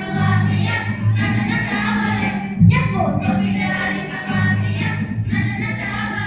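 A song with a choir of voices singing over musical accompaniment with steady bass notes.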